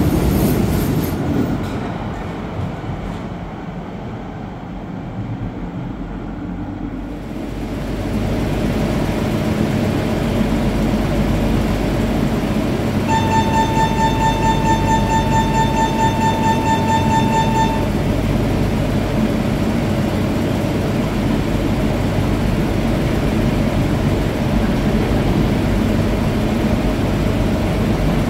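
Metro train running in along the platform and slowing to a stop, then standing with a steady rumbling hum. About halfway through comes a rapid, high-pitched beeping lasting about five seconds, the door-closing warning.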